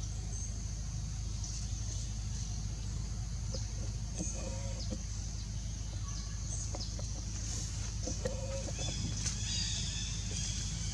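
A few short animal calls over a steady outdoor background of low hum and high hiss. The calls come about four seconds in and again around eight to ten seconds.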